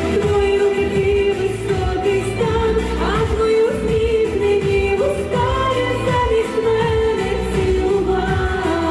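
Pop song: a woman singing long held notes with slides over a backing track with a moving bass line.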